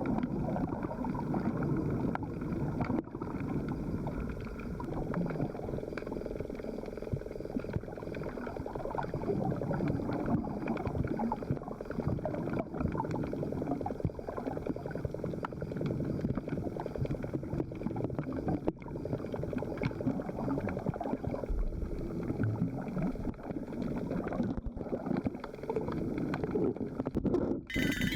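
Muffled underwater sound picked up by a camera while snorkelling: water gurgling and bubbling around the housing, with scattered small clicks and pops.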